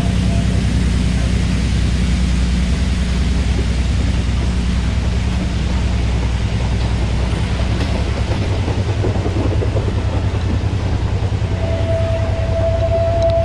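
Narrow-gauge wooden passenger cars rolling past close by, with a steady low rumble and rhythmic wheel clatter on the rails. Near the end a single steady high-pitched tone joins in.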